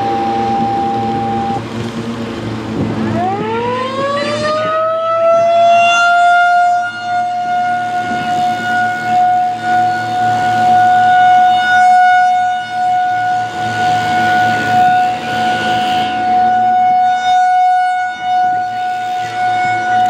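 Federal Signal 2001-SRN rotating outdoor warning siren winding up about three seconds in, its pitch rising for a few seconds and then holding one steady tone: the alert signal of a siren test. Its loudness swells and fades as the horn turns on its 8 rpm rotator.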